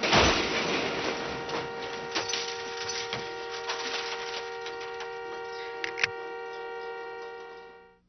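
A loud hit at the very start, then a steady ringing drone of several held tones over a faint ticking about twice a second, fading out in the last second.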